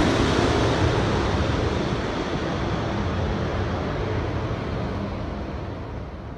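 Twin-engine jet airliner on landing approach, just past low overhead and moving away. Its engine noise is a steady rushing that fades gradually over the seconds.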